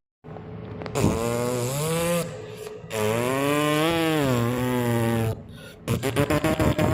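Two long, low moos from a cow, the second one longer and rising then falling in pitch, followed near the end by a fast run of rhythmic clicks and pulses.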